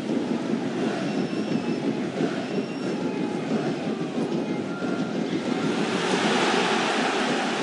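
Football stadium crowd noise: a dense, steady roar of supporters in the stands. It swells about six seconds in as play reaches the goalmouth.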